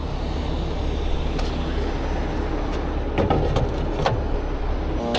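Heavy rotator tow truck's engine idling with a steady low rumble, with a few sharp metal clanks about three to four seconds in as an aluminium side-box compartment on the truck is handled.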